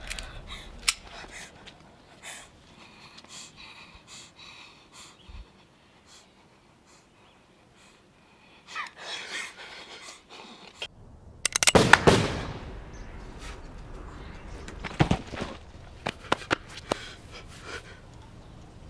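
A single loud pistol shot about twelve seconds in, a sudden bang with a short ring-out. Scattered sharp clicks and knocks come before it, and a few more follow over the next several seconds, with heavy breathing.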